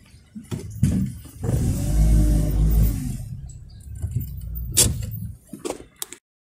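A car's engine speeding up and then easing off, heard from inside the car as it drives, with its pitch rising and falling. A few sharp knocks come near the end.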